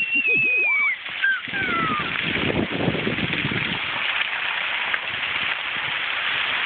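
A child's long, high squeal, then a steady hiss of fountain water jets spraying that starts about one and a half seconds in.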